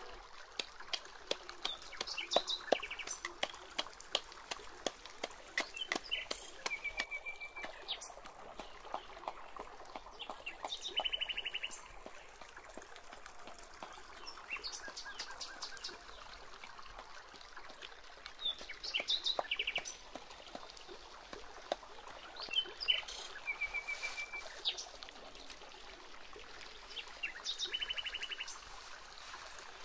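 Small birds singing short, rapid trills that recur every few seconds, over a faint steady outdoor background. Scattered light knocks and taps run underneath, fitting a pestle pounding in a small mortar.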